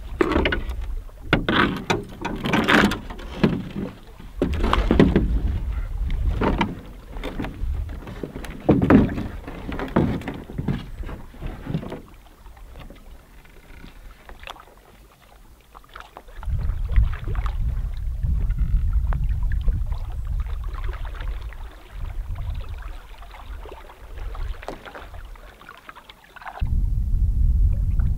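A canoe being pushed off a rocky shore and paddled away, with irregular knocks, scrapes and splashes of hull and paddles for about the first twelve seconds. From about halfway a steady low rumble of wind on the microphone takes over as the canoe is out on the open lake.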